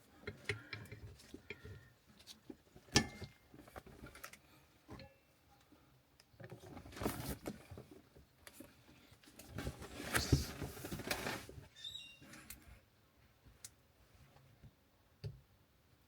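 Scattered clicks and knocks from car parts and tools being handled. About seven and ten seconds in there are two longer stretches of rustling and scraping.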